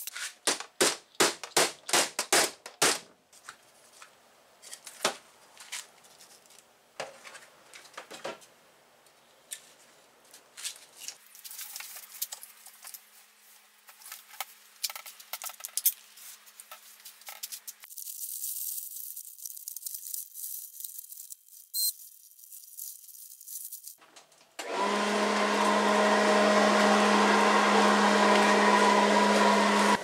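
A rapid string of sharp clicks and knocks for the first three seconds, then quiet scattered clicks with a faint hum. About 25 seconds in, a turbo blower starts and runs loud and steady with a humming pitch.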